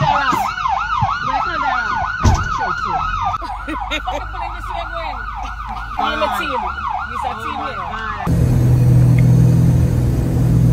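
Police siren on a rapid yelp, about four rising-and-falling sweeps a second, with a slower wail overlapping it near the start. It cuts off suddenly about eight seconds in, giving way to the steady drone of a small aircraft's engine heard from inside the cockpit.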